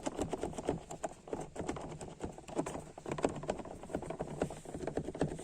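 Rapid, irregular plastic clicking and rattling from a loose interior trim piece of a Renault Mégane II being wiggled by hand. It is the kind of rattle that makes the car's interior creak and rattle while driving.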